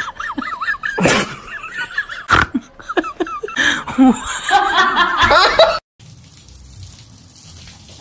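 A person laughing loudly in repeated, wavering bursts, with a couple of sharp louder outbursts, cutting off suddenly about six seconds in; after that only faint, steady background noise.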